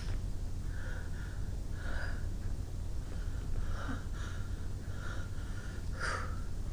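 A woman's repeated short, sharp breaths and sniffs through the nose, the strongest about six seconds in, over a steady low rumble: the breathing of someone trying to bring on a sneeze.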